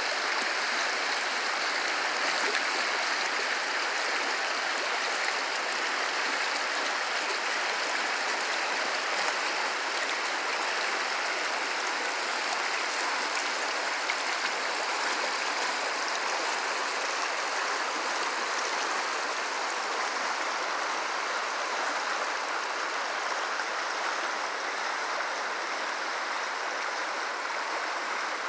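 Shallow rocky stream rushing over stones and small riffles, a steady water noise that eases slightly near the end.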